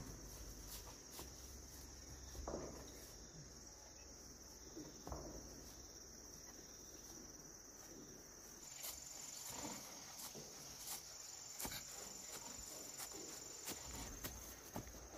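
Insects chirring steadily in a faint, continuous high-pitched buzz, with a few faint knocks and clicks scattered through it.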